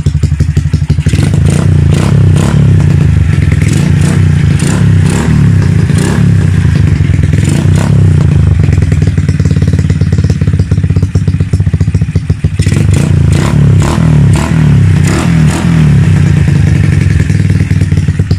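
Bajaj motorcycle's single-cylinder four-stroke engine, fitted with a 24 mm carburetor and an aftermarket slip-on muffler, running steadily with a fast, even exhaust beat and some mechanical clatter. It is holding its idle without stalling, now that the air screw is set at two and a half turns and the idle raised.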